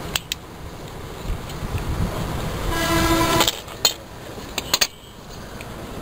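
A horn toots once, a steady tone of under a second about three seconds in, over a low rumble like distant traffic. A few sharp clicks are heard as well.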